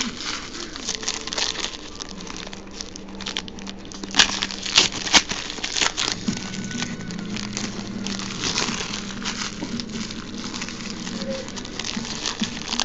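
Foil wrapper of a Diamond Kings baseball card pack crinkling and tearing as it is torn open by hand, with a few sharper, louder crackles about four to five seconds in.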